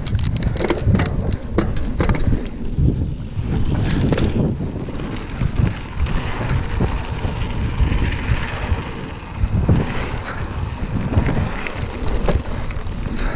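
Wind buffeting the microphone as a mountain bike rides a dirt trail, with tyres rolling over the ground and scattered sharp clicks and rattles from the bike.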